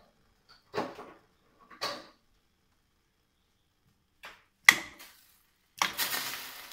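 Several separate knocks and clinks, the sharpest a little under five seconds in. Then ice cubes splash into a stainless steel pot of water near the end, the splash fading out slowly.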